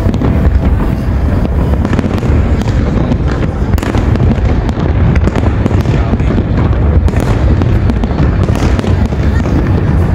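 Large aerial fireworks display: shells bursting in a dense, continuous barrage of booms that overlap without a pause.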